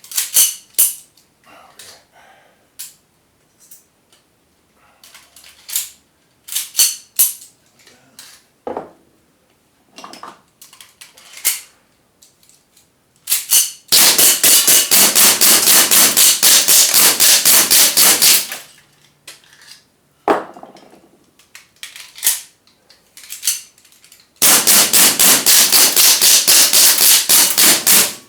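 Gas airsoft gun firing: scattered single shots and short strings, then two long full-auto bursts of about four seconds each.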